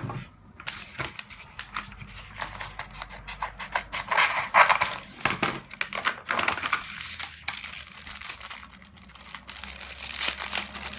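A parcel being torn open by hand, its packaging rustling and crinkling with many small irregular crackles.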